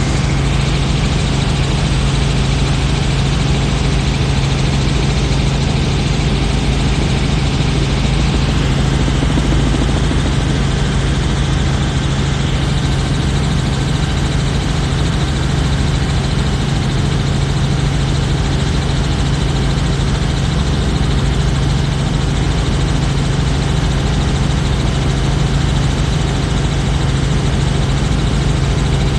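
Helicopter in flight heard from inside the cabin: a loud, steady drone with a strong low hum and constant hiss.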